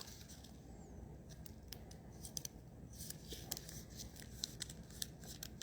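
Faint light clicks and scrapes of trading cards being handled, slid and sorted, scattered irregularly and a little busier in the second half.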